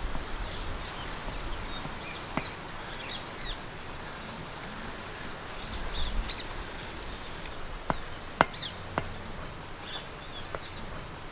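Outdoor ambience with small birds chirping on and off, and a few sharp clicks or taps, three of them close together about eight seconds in.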